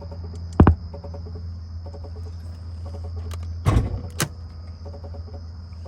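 Electrical noise from an Infiniti G37's audio speakers: a steady hum under a high whine, with short chirping patterns repeating, broken by a sharp click about half a second in and two more near four seconds. The owner puts the car's noises down to terrible wiring; the car also won't crank.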